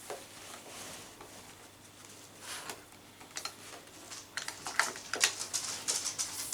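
A ring binder with plastic pocket sleeves being handled and fumbled at to open it: crinkling plastic and small clicks and taps, sparse at first and getting busier past the middle.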